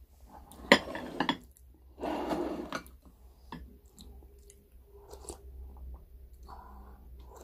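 Close-up eating sounds: sharp clinks of a metal spoon and tableware against a glass bowl and plate, the loudest about a second in, and a burst of chewing about two seconds in, followed by fainter clinks of the spoon in the bowl.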